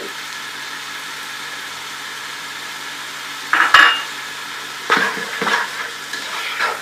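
Chicken, egg, onions and mixed vegetables frying in a pan with a steady sizzle. About three and a half seconds in, a utensil clanks against the pan with a short ring, followed by scraping and clatter as the food is stirred.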